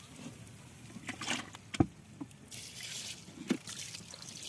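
Campfire embers and hot stones hissing and sizzling as they are doused with water, with a few sharp pops and one loud crack about two seconds in.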